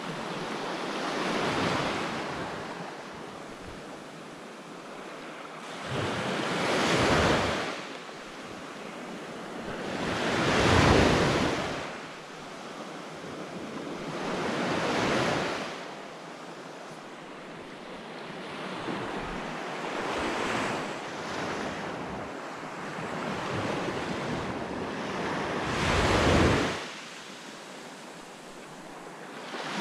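Small surf waves breaking and washing up a sandy beach, each wash swelling and fading every four to six seconds.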